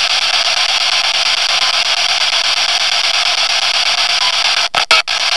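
Steady, loud hiss of static with little bass, broken by three brief dropouts near the end.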